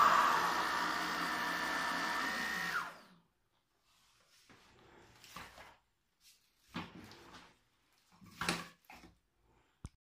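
DEIK cordless stick vacuum cleaner's motor running with a steady whine, then switched off about three seconds in, its pitch falling as it spins down. After that, a few faint knocks and rustles of plastic parts being handled.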